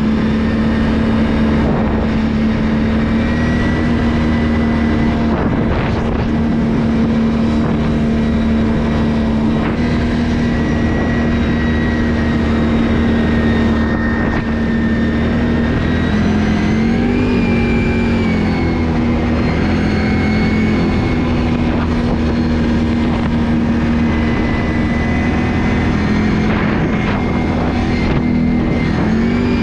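Can-Am ATV engine running steadily under way, with a brief rise and fall in engine speed just past halfway and another rise at the very end.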